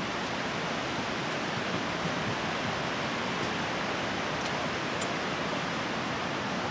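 Strong storm wind rushing in a steady hiss ahead of an approaching bow-echo thunderstorm, with a few faint ticks.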